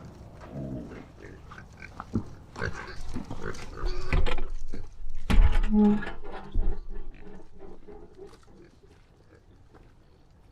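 Pigs grunting at feeding, with a busy run of knocks and clatter in the middle that is the loudest part.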